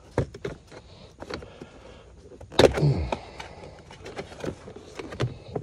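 Plastic interior trim panel of a 2015 Ford F-150 being pulled off its retaining clips: a series of sharp clicks and plastic knocks, loudest about two and a half seconds in.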